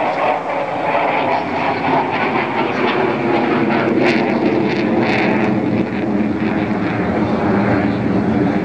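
Jet engine noise from a SAAB JAS-39 Gripen flying overhead: a loud, continuous rushing drone whose pitch sinks steadily, with a harsher hiss briefly about four and five seconds in.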